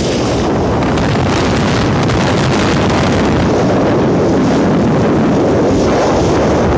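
Strong wind blowing across the microphone on a heeling sailboat in rough water: a loud, steady rush of noise.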